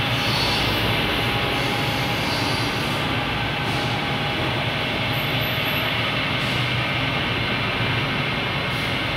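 Centrifugal de-oiling/dewatering dryer running: a steady mechanical running noise from its motor and spinning basket, with a few faint steady whines above it.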